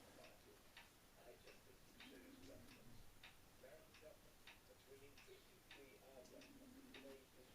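Faint, regular ticking, about two ticks a second, over faint distant talk.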